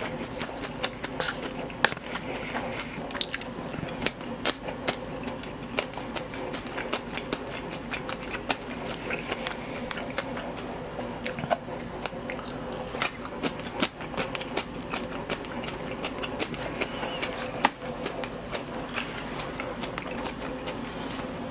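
A person chewing braised pig's trotters (jokbal) close to the microphone, with many small wet smacks and clicks, over a steady low hum.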